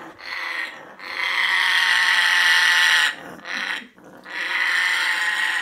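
African grey parrot giving a harsh, raspy growling screech three times: a short one at the start, a long loud one about a second in, and another near the end. It is the parrot's alarmed reaction to a dog wearing a sweater.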